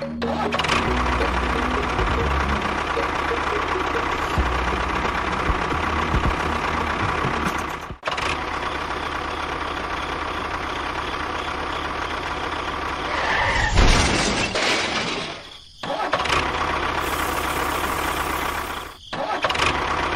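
Motor of a small DIY mini tractor or bulldozer running steadily with a constant whine. The sound cuts off abruptly about eight seconds in, and twice more near the end.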